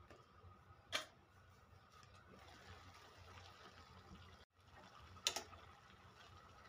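Faint kitchen clatter over a low steady hum: a sharp metallic clink about a second in, as the lid comes off the pan, then another clink with a couple of smaller taps about five seconds in, as a metal spatula knocks the pan while stirring steamed vegetables.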